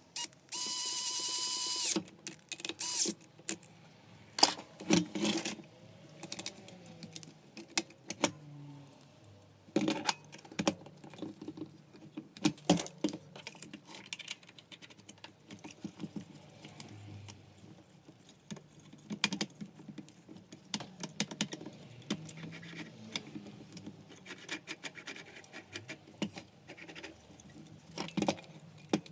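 A steady electronic beep for about the first two seconds, then irregular clicks, knocks and light clatter of small parts and tools being handled while taking apart a Makita belt sander.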